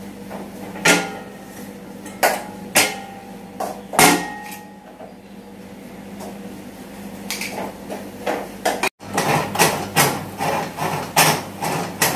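Steel-framed stool-type coconut scraper being handled: its metal frame and fold-down seat clank five or six times in the first few seconds, some knocks ringing briefly. Near the end comes a quick regular rasp of a coconut half being scraped against the serrated blade, about three strokes a second.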